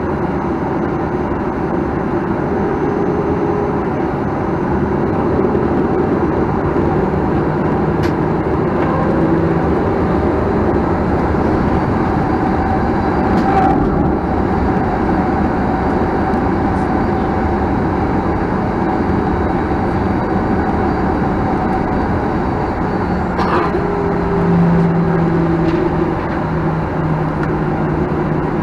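Steady cabin noise inside a Boeing 737-900ER with its CFM56 engines running, a low engine hum under a broad rush, with a few sharp knocks.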